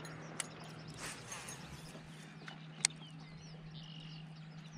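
Birds chirping in short calls over a steady low hum, with two sharp clicks, one soon after the start and one nearly three seconds in.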